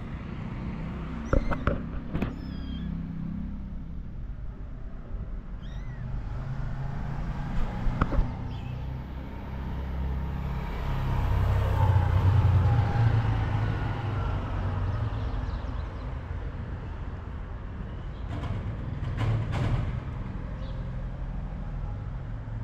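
Kittens mewing in short, high-pitched calls, a few at a time, early on and again near the end, over a low traffic rumble; a vehicle passes about halfway through.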